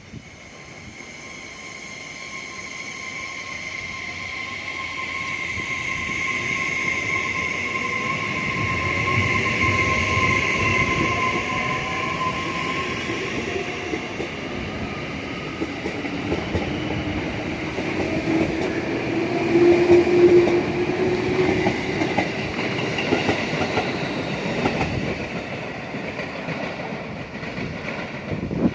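A train approaching and running past on the rails: the sound builds over the first ten seconds with a high, steady whine, then wheels ticking over rail joints, with a rising tone partway through.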